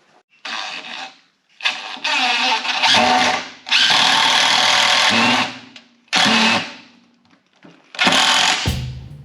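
Cordless power driver running screws into construction lumber, in about five bursts of under a second to about two seconds each, with short pauses between.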